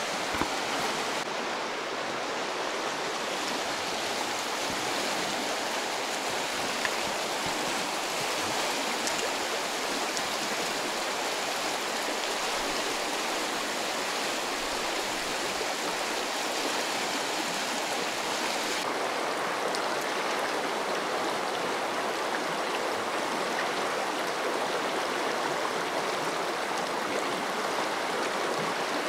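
Fast mountain river running steadily in a strong current.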